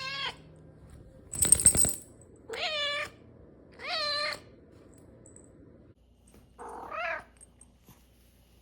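Maine Coon cat meowing four times in short calls of about half a second each, the pitch rising and then falling. About a second and a half in there is a loud, short rattling clatter.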